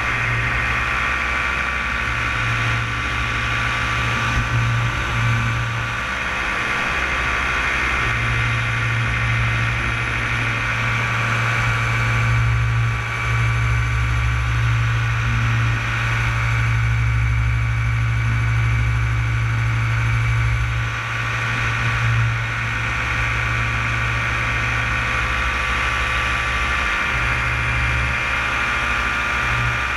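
Paramotor engine and propeller running steadily at cruise power in flight: a constant low drone with a high whine over it.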